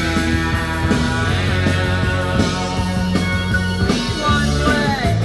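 Rock music playing loudly through a car's standard audio system, with a strong bass line, heard inside the cabin.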